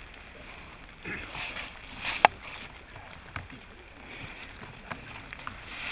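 Quiet background of a gathered outdoor crowd: faint voices and rustling, with one sharp click a little over two seconds in and a few softer ticks after it.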